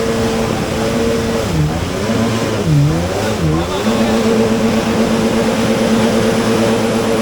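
Motorized watercraft engine running at high revs. Its pitch dips and recovers three times in quick succession about one and a half to three and a half seconds in, then holds steady.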